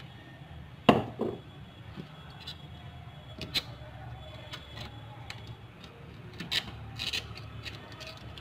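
Surgical blade scraping and prying at the Apple logo set into an iPhone 6s aluminium back housing: faint rubbing broken by a few sharp clicks and taps, the loudest about a second in, over a low steady hum.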